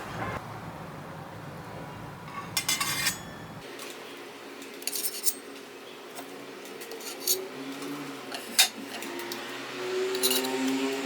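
Kitchen utensils and dishes clinking: a short clatter about two and a half seconds in, then several separate clinks spaced a second or two apart.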